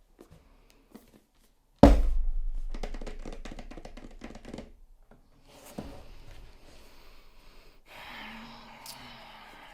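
Packaging handled on a desk: a sharp thunk about two seconds in, then a few seconds of fading crackling, a softer thud, and quiet rustling of the box and wrapping.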